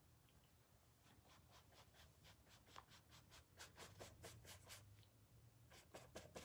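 Faint paintbrush strokes on a damp canvas shoe: a quick run of soft scratchy strokes, about five a second, with a short pause near the end.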